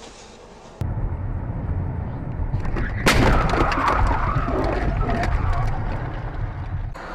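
Dashcam recording of a car: a low road rumble cuts in about a second in. About three seconds in, a sudden loud burst of crashing noise hits, and rough, irregular noise carries on as the car drives into a thick cloud of dust.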